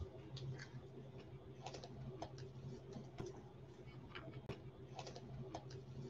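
Faint, irregular light clicks and ticks of baseball cards being handled, flipped and set down on a table, over a low steady hum.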